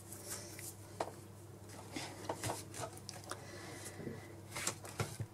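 Faint, scattered light taps and clicks of a pen and a spiral sketchbook being handled on a wooden desk, with a few small knocks near the end.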